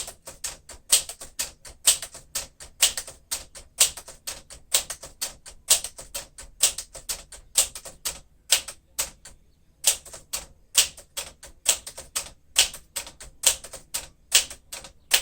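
1953 Smith-Corona Super manual typewriter being typed on steadily: a fast run of sharp typebar strikes, several a second, with only a brief gap about ten seconds in.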